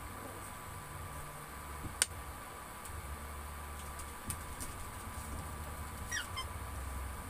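Metal ladle stirring sinigang in a nonstick pan: a sharp knock of the ladle on the pan about two seconds in, a lighter one later, and a short squeaky scrape near the end, over the steady hum of an induction cooktop that comes and goes in stretches.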